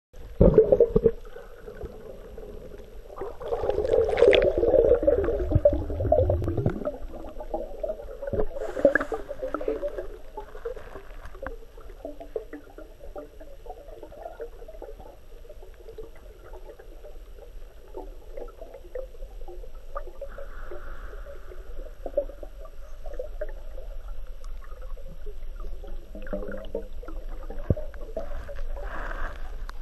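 Muffled underwater noise picked up by a camera submerged in fresh water: irregular water movement, louder in a swell a few seconds in, with scattered small knocks.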